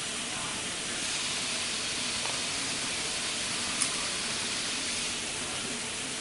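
Steady, even hiss with a single sharp click about four seconds in.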